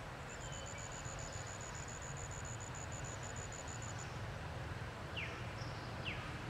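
Forest ambience. A high, rapid, even trill of about seven pulses a second stops about four seconds in, and two short falling chirps from a bird follow near the end, over steady low background noise.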